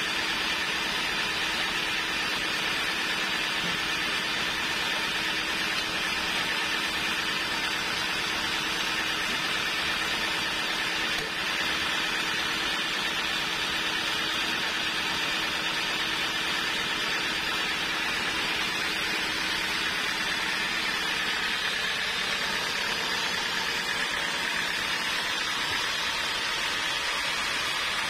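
Band sawmill running steadily, its motor and band blade giving a continuous even machine noise. A low steady hum in it drops out about three-quarters of the way through.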